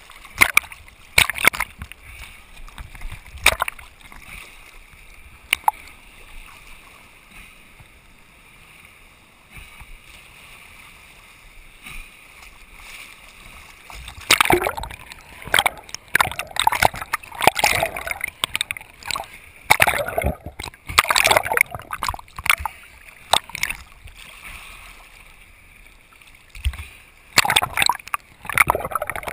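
Sea water splashing and sloshing around a camera held at the water's surface by a swimmer, in irregular bursts of splashes from arm strokes. It is quieter for several seconds early on, then comes in dense bursts for most of the second half.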